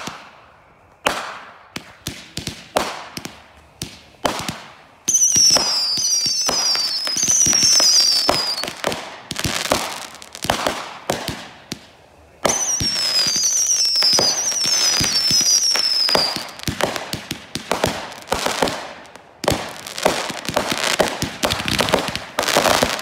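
Backyard consumer fireworks going off: a string of sharp bangs about once a second, then, about five seconds in and again about twelve seconds in, several-second stretches of dense crackle with repeated shrill whistles falling in pitch. Near the end come rapid bangs and crackling.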